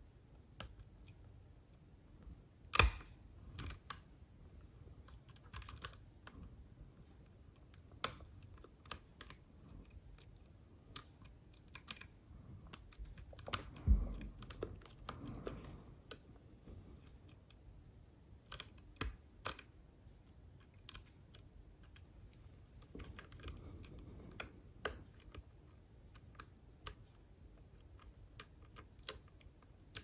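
Light, irregular metallic clicks and ticks of a hook pick and tension wrench working the pins inside an Assa Ruko lock cylinder, with two louder knocks about three seconds in and again near the middle.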